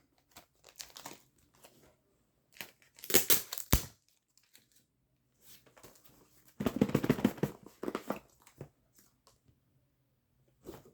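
Packaging being handled and unwrapped: irregular bursts of crinkling and tearing, loudest about three seconds in and again around seven seconds, with small handling clicks between.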